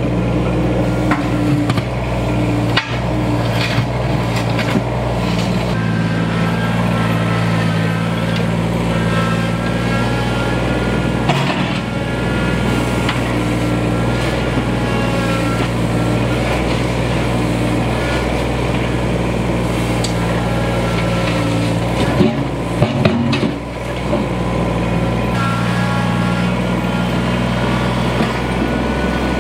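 Kubota BX2370 compact tractor's three-cylinder diesel engine running steadily as the tractor drives and works its front loader over gravel fill, with a thin whine rising and falling above the engine. A few clanks come about three quarters of the way through.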